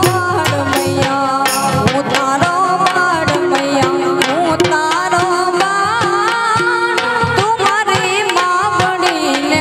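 Woman singing a Gujarati devotional folk song to Mogal Maa, her voice sliding through ornamented phrases, over a steady tabla rhythm and held keyboard notes.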